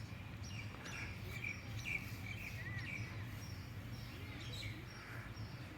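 Small birds chirping in quick short notes, busiest in the first three seconds, over a steady low background hum.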